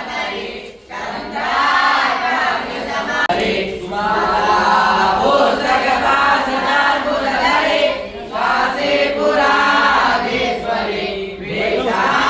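A group of voices chanting a Sanskrit hymn together in phrases, with short breaths between lines.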